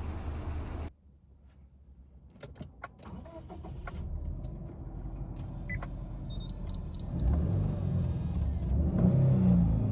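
Subaru Legacy B4 2.0GT Spec B's EJ20 turbo flat-four engine running with a steady low rumble, which cuts off abruptly about a second in. A quiet stretch of small clicks and a short beep follows, then the engine's low rumble builds again and grows louder toward the end.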